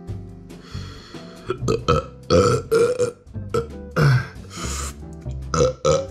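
A man burping again and again, a rapid string of short burps from about a second and a half in, his body's reaction to a spoonful of extremely hot chili sauce.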